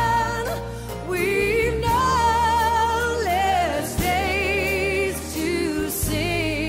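Christian worship song: a singing voice holds notes with vibrato over a steady low accompaniment, phrase after phrase.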